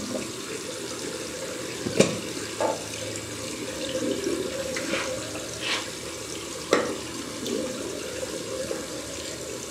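Bathroom tap running steadily into a sink, with several short sharp clicks and knocks now and then.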